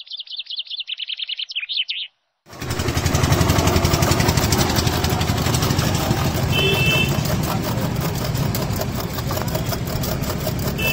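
Birds chirping and trilling for about two seconds. After a sudden cut, a spoon rapidly beating eggs in a steel mug makes a fast, even clatter over a steady low rumble.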